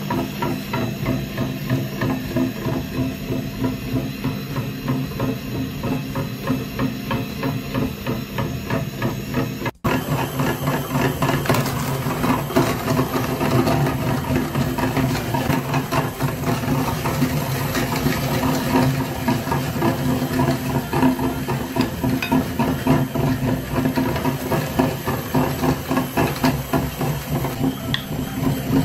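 Electric meat grinder running: the motor hums steadily while the auger turns with a fast, rattling knock as a white ball tumbles in the metal feed throat and is ground down. There is a brief break about ten seconds in, after which the knocking is louder.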